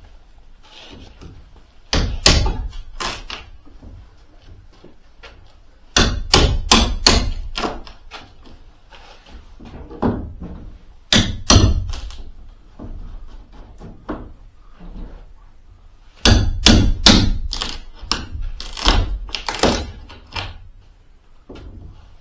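Hammer blows striking a shipping crate to open it, coming in bursts of several quick knocks with pauses between.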